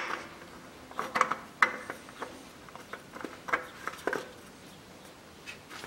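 A new spin-on oil filter being screwed onto the engine by hand: a few light, irregular clicks and scrapes as it is turned on its thread.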